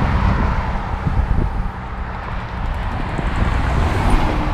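Road traffic running by, with wind buffeting the microphone as a steady low rumble.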